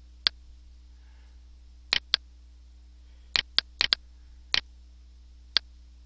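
Computer mouse clicking: about nine short, sharp clicks at uneven spacing, several in quick pairs, over a faint steady low hum.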